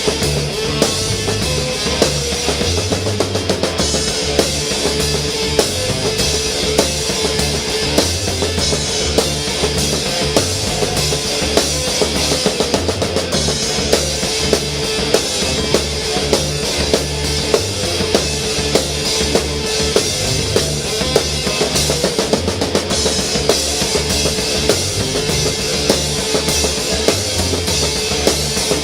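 Rock music: a full drum kit, kick and snare keeping a steady beat, under a held note and bass.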